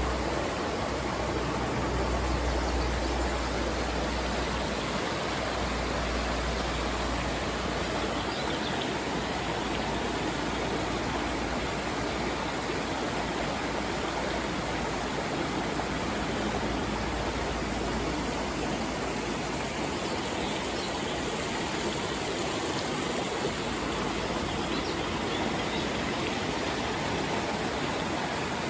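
River water flowing steadily into a pool, a constant even rush of stream or small-waterfall noise. A low rumble underneath fades out over the first several seconds.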